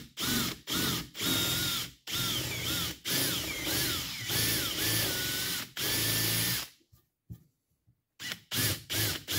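Cordless drill boring through a hardwood axe handle, run in short trigger bursts with the motor whine rising and dropping each time; fed slowly to keep the wood from splintering. It stops for about a second near seven seconds in, then starts again in quick short bursts.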